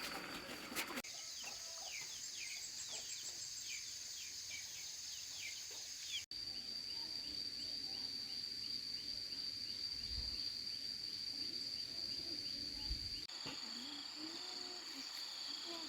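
Rural ambience: insects whining steadily on a high pitch, with rows of short, quick bird chirps. The mix changes abruptly three times.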